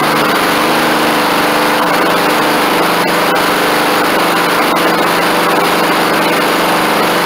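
Honda GCV160 single-cylinder engine on a Honda HRS216 push mower running steadily at an even speed, its governor freshly reset to cure overrevving.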